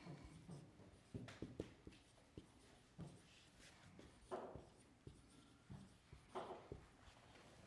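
Faint squeaks and scratches of a marker writing words on a whiteboard, stroke by stroke, with a couple of longer, stronger strokes about four and a half and six and a half seconds in.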